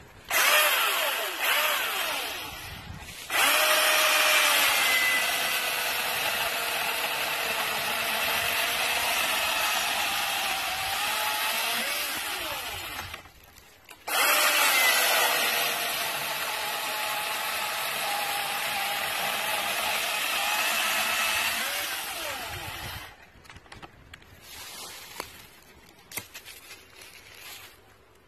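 Milwaukee M18 Fuel 16-inch cordless brushless chainsaw spinning up and cutting through a log, its whine dropping in pitch as the chain bogs into the wood and rising again as it clears. It stops about 13 s in, starts again about a second later for a second cut of about nine seconds, then stops.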